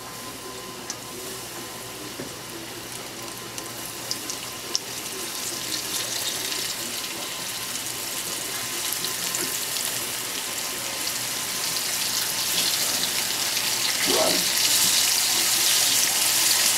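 Breaded catfish nuggets frying in hot oil in a frying pan, a steady sizzle and bubbling that grows louder as more pieces are dropped in.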